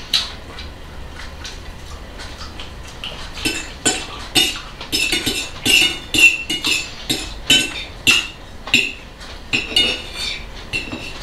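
Forks clinking and scraping against dinner plates while people eat salad. The clinks are sparse at first, then come as a quick, irregular run from about three seconds in.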